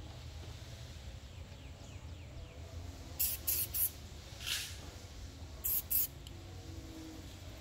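Aerosol spray-paint can giving short bursts of spray: three quick ones about three seconds in, a softer one a little later, and two more near six seconds.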